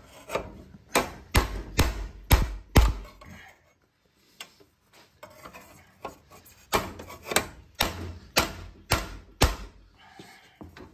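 Hammer striking metal on the garden tractor's frame or exhaust parts: two runs of five or six sharp blows, about two a second, with a pause of a few seconds between them.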